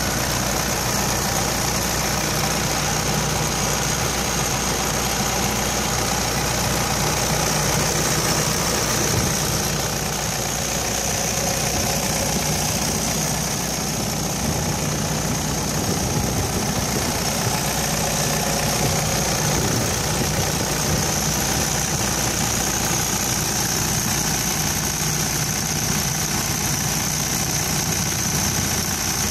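Komatsu PW98MR-6 wheeled excavator's diesel engine idling steadily, heard up close, with a steady high-pitched whine above the engine note.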